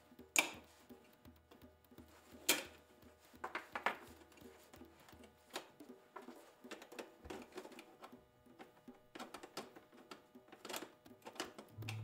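Small metal clicks and clinks as the parts of an old steel door lock are handled and fitted back together. Two sharper clicks come in the first few seconds, followed by a run of lighter taps.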